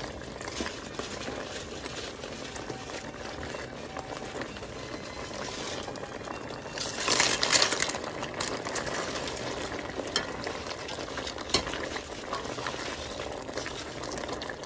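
Red chile salsa bubbling at a boil in a stainless steel pot while fried tortilla chips are stirred into it with a metal spoon. About seven seconds in comes a louder, brief rustle as more chips go in, followed by a few clinks of the spoon against the pot.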